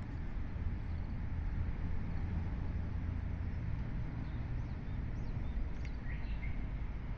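Steady low outdoor rumble, with a few short bird chirps from about four to six and a half seconds in.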